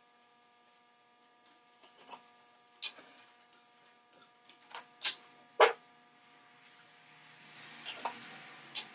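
Scattered clinks and knocks of a sheet-metal carriage lamp body being turned and handled on a workbench, the sharpest a little past halfway. A soft gas-torch hiss rises near the end.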